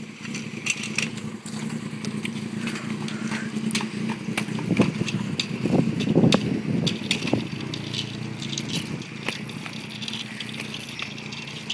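Skateboard and kick-scooter wheels rolling on asphalt: a steady rumble with many scattered clicks and knocks, loudest about halfway through.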